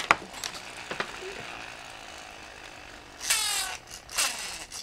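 Toothed plastic rip cord ratcheting through a toy race car's gear in a short zipping burst about three seconds in, with a second short burst soon after. Light clicks of plastic pieces being handled before it.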